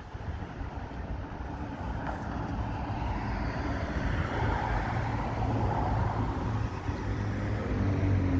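Motor vehicle engine and road rumble, getting steadily louder, with a low engine hum growing stronger near the end.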